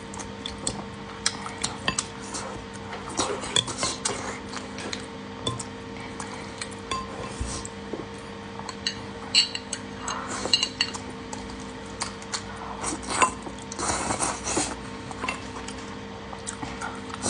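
Eating utensils clinking and scraping against a bowl in irregular short clicks, over a faint steady hum.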